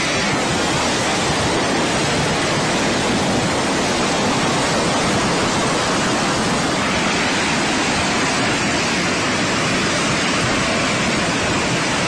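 Muddy floodwater rushing past in a fast torrent: a loud, steady, unbroken roar of water.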